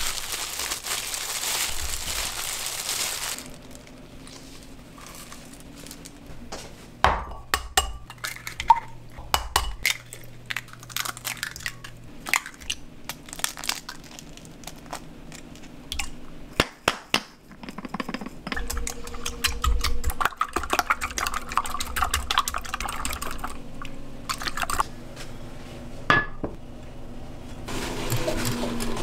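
Food-prep sounds in a kitchen: plastic-gloved hands crinkle as they tear imitation crab sticks apart for the first few seconds. Then come many light clicks and knocks, with eggs being cracked into a glass measuring jug.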